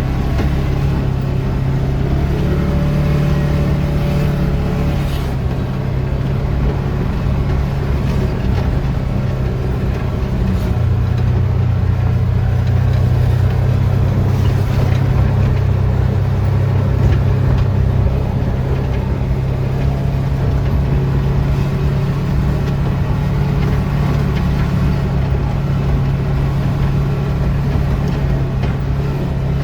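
A vehicle engine running steadily at a low drone while driving, getting a little louder for several seconds near the middle.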